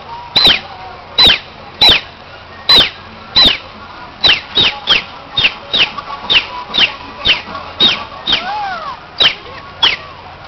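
Whistle blown to call pelicans in: sharp, high notes, each a short downward slide, repeated about sixteen times, spaced out at first and coming faster from about four seconds in.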